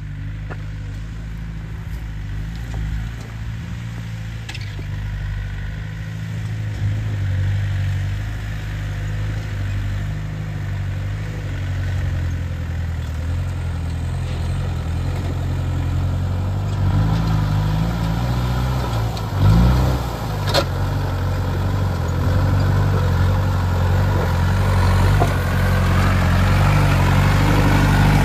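Off-road 4x4's engine running steadily at low revs on a rough track, getting louder toward the end, with a thump and then a sharp knock about two-thirds of the way through.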